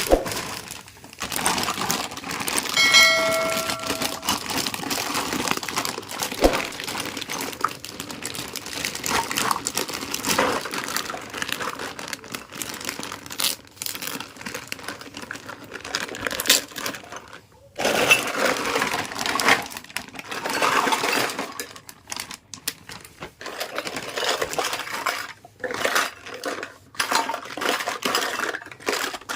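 Toys and their packaging being handled and unboxed: a steady run of small clicks, taps and crinkling, with one brief ringing tone about three seconds in.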